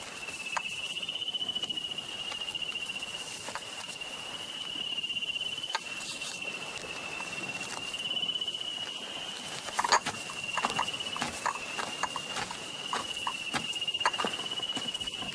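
Steady high-pitched insect buzzing that wavers slightly in pitch and loudness, with scattered light clicks and taps, the loudest about ten seconds in.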